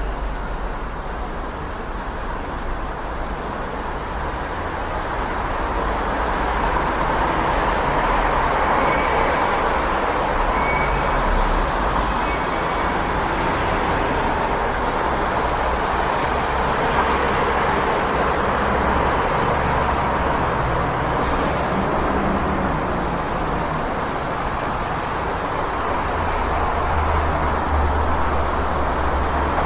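City street traffic noise: a steady wash of passing cars and other vehicles, growing a little louder about six seconds in, with a heavier low rumble near the end. A few faint short high squeaks sound over it.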